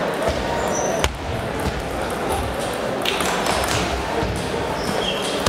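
Table tennis rally: a celluloid ball clicking sharply off the paddles and the table, spaced a second or two apart. Background chatter from a large sports hall runs underneath.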